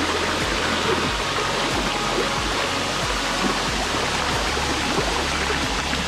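Steady rush of a waterfall and stream water, with background music faintly under it.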